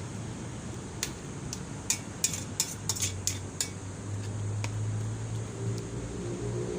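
A utensil clinking against a cooking pot, about eight sharp clinks in quick succession, while vegetables are stirred into the simmering broth. A steady low hum comes in about halfway.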